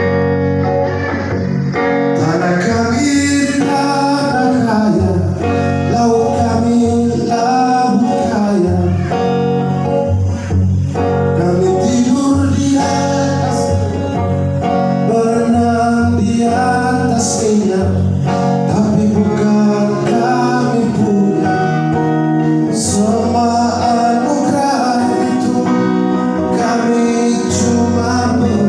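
A song with a male voice singing over guitar and a backing band.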